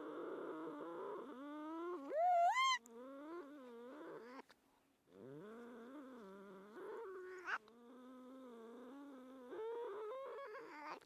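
Domestic cats fighting: long, low, wavering growls, broken by a loud rising yowl about two seconds in and a short sharp cry a little past the middle, with a brief pause about halfway.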